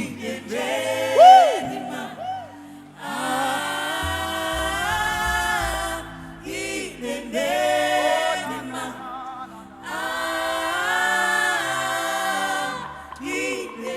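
Live gospel worship singing: voices in choir-like harmony singing slow, long held phrases with wavering pitch, over steady low instrumental backing, with short breaths between phrases.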